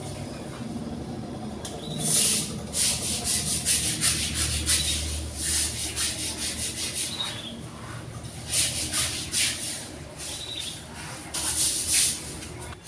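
Irregular rubbing or scrubbing strokes that begin about two seconds in, coming in quick runs with short pauses.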